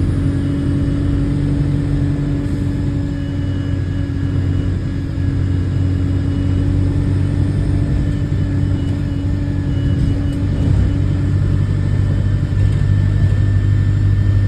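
Bus diesel engine running under way, heard from inside the bus as a steady low drone with a rumble, growing a little louder near the end. The exhaust note is that of a bus with an exhaust leak.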